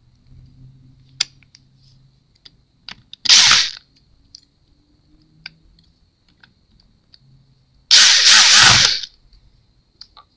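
Electric screwdriver driving small screws into a laptop chassis in two short runs, the first about half a second long and the second just over a second, with a small motor whine in the second run. Faint clicks between the runs.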